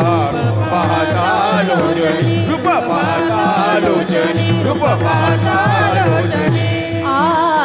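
Marathi devotional abhang sung in a Varkari kirtan: voices holding long, wavering notes that slide and shake, over a steady drone and a regular clash of small brass hand cymbals (taal).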